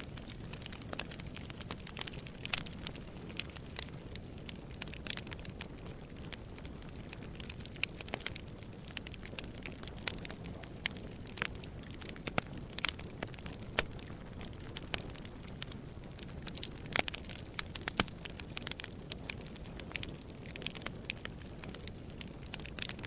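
Wood fire in a fireplace crackling, with frequent irregular sharp pops and snaps over a steady low rumble of flames.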